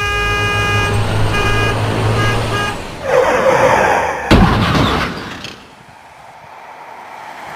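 Storm sound effects: a steady droning tone for about three seconds, a rushing swell of noise, then a sharp thunderclap about four seconds in that rumbles away into quieter storm noise.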